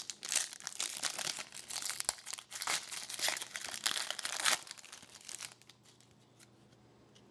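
Hockey card pack wrapper crinkling and being torn open, a dense rustle that thins out and stops about five seconds in.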